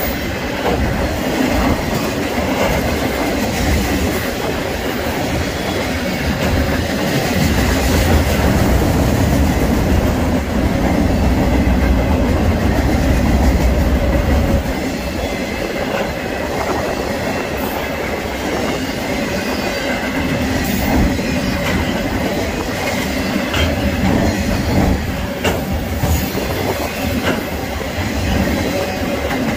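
Freight train of autorack cars rolling past close by: a steady rumble of steel wheels on rail, with occasional clicks over rail joints and a faint, steady, high wheel squeal.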